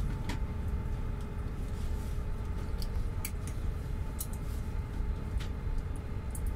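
Airbus A380 cabin noise while taxiing: a steady low rumble with a faint constant hum, and a few faint clicks.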